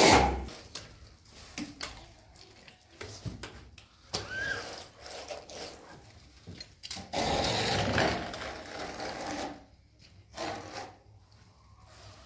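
Mud plaster being worked by hand and with a trowel: a loud rustle and squelch at the start, then scattered scraping. A longer steady scrape comes about seven seconds in, like a trowel working plaster on a board.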